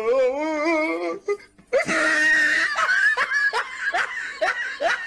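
People laughing: a drawn-out wavering laugh, then a loud high squeal about two seconds in, followed by quick short bursts of laughter about three a second.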